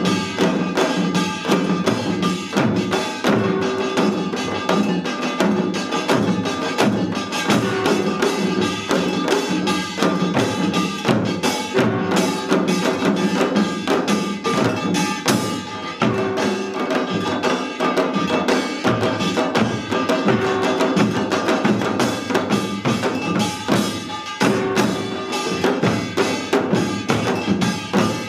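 Seated samul nori percussion ensemble playing a dense, fast rhythm: janggu hourglass drums and buk barrel drums beat under the constant ringing clang of kkwaenggwari small gongs.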